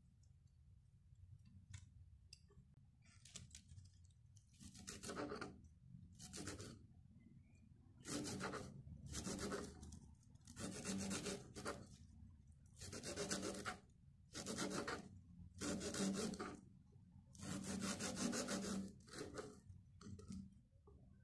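Kitchen knife chopping fresh parsley on a wooden cutting board: faint runs of quick strokes in about a dozen short bursts, starting about five seconds in.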